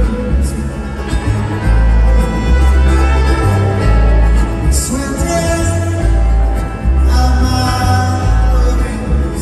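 Live band playing a bluegrass-rock song: acoustic guitar and electric slide guitar over deep bass notes that change every second or two, with a man singing.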